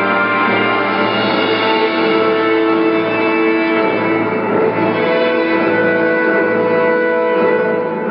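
Orchestral background music with sustained strings and brass.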